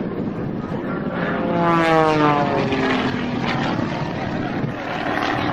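Propeller airplane engine passing close by, its pitch dropping steeply as it goes past about two seconds in.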